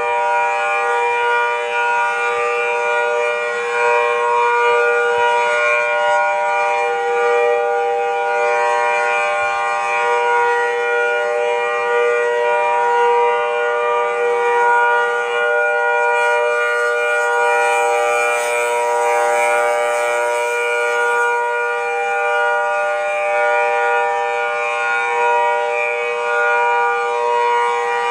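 EOWS 612 electronic outdoor warning siren sounding a steady, unchanging tone made of several pitches at once, with no rise or fall in pitch.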